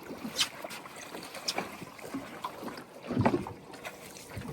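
Scattered knocks and bumps aboard a small open fishing boat, over wind and water noise, with a louder thud about three seconds in.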